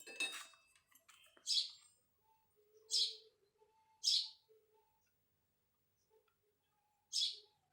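A small bird chirping in short high calls, about five of them spaced a second or more apart.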